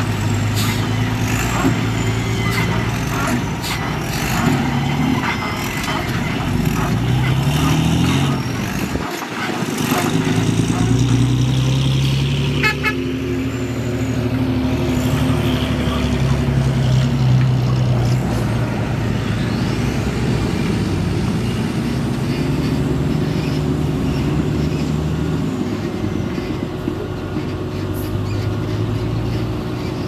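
Wheel loader's diesel engine revving up and down again and again as it lifts and tips buckets of soil, with a dump truck's diesel engine running alongside. Clattering knocks of falling soil and metal in the first few seconds.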